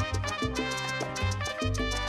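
Background salsa music with a quick, steady beat and a bass line moving in short notes.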